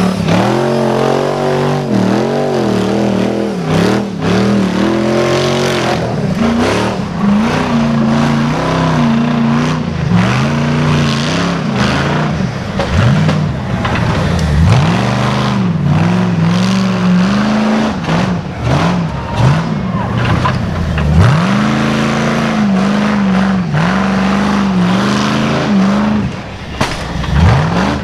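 Competition off-road truck's engine revved hard over and over, its pitch dropping and climbing again every second or two with repeated throttle blips.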